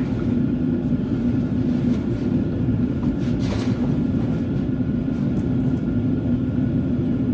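Steady low machine drone, with a brief scrape about three and a half seconds in.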